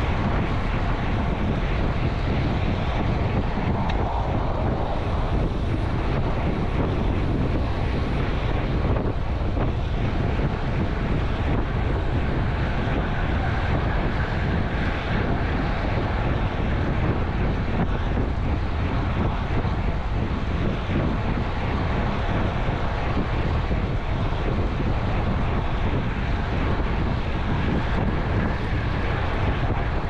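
Wind buffeting a camera microphone on a road bike riding fast into strong wind: a steady, heavy rush with a deep rumble.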